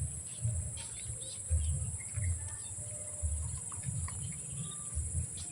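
Steady high-pitched drone of insects, with scattered short bird chirps and irregular low thumps.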